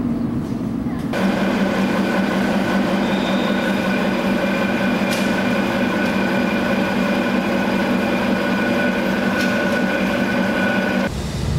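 Subway train running: a steady rumble with constant humming tones that cuts in abruptly about a second in and cuts off abruptly near the end.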